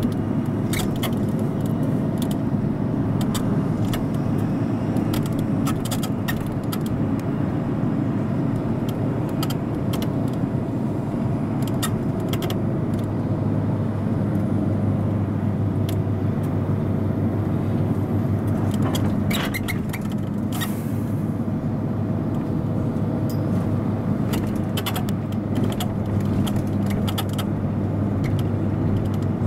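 Inside an airport apron bus driving across the tarmac: a steady engine and tyre drone with frequent rattling and clicking from loose fittings, and a brief hiss about twenty seconds in.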